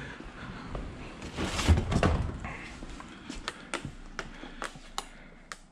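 Handling a plastic engine-oil jug: a rustling scrape about a second and a half in, then a string of short, sharp plastic clicks and taps.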